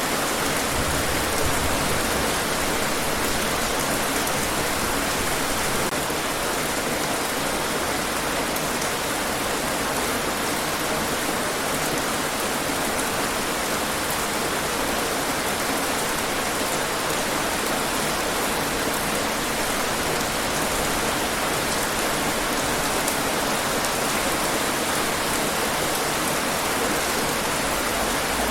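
Steady rain falling on hard surfaces, an even, unbroken hiss.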